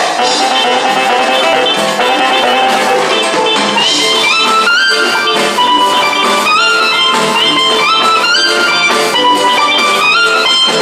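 A live cumbia band playing, with a guitar lead over drums and percussion. From about four seconds in, the guitar plays a melody that climbs in short rising phrases, over and over.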